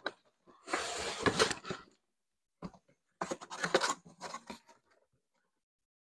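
Cardboard box and packing being handled during an unboxing: two spells of rustling and scraping, each a second or so long, with a short knock between them.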